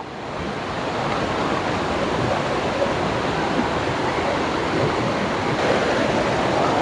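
Waterfall rushing: a steady wash of falling water that grows louder over the first second, then holds.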